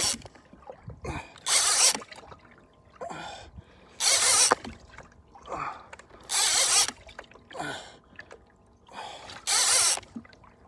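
Heavy, rhythmic breathing of an angler fighting a hooked fish: a loud exhale about every two and a half seconds, each after a softer inhale.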